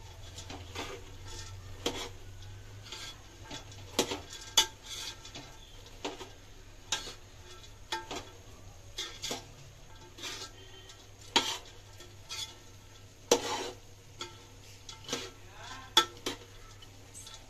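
A metal spoon scraping and clinking against a large aluminium pot as fried besan boondi is stirred through sugar syrup. The knocks come irregularly, about once a second.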